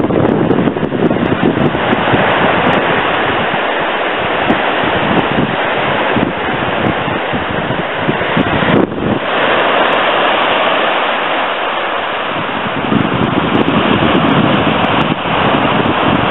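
Small waves breaking and washing up a sandy shore, with wind buffeting the microphone.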